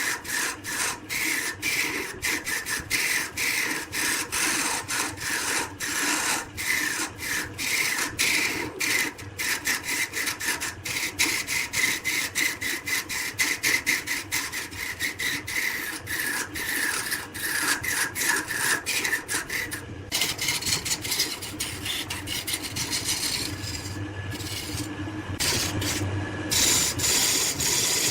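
Rasping strokes of a tool against wood, repeated two to three times a second, each with a short rising scrape. After about 20 seconds they give way to a steadier rubbing scrape.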